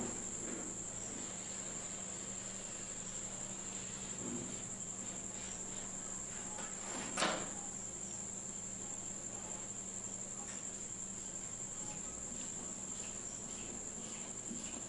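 Faint marker strokes on a whiteboard as lines are drawn, with one sharp tap about seven seconds in, over a steady high-pitched tone and a low hum.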